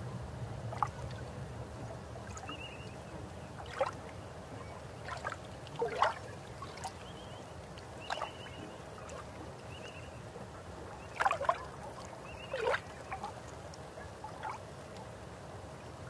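Air bubbles gurgling underwater: scattered short, falling gurgles a second or more apart over a low rumble that fades away in the first couple of seconds.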